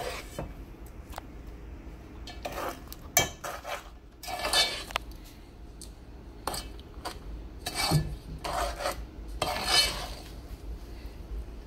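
Metal spoon stirring a thick mixture of condensed milk, sugar and melting butter in a metal pot, scraping and clinking against the pot's sides and bottom at irregular intervals, with a few louder strokes.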